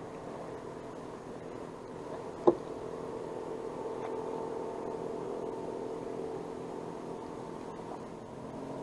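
A steady mechanical hum with several close pitches, like a small motor running, swelling slightly partway through. About two and a half seconds in there is one sharp click, the loudest sound.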